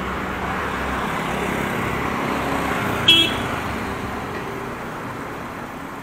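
Street traffic noise of passing motor vehicles, with one short, high horn toot about three seconds in.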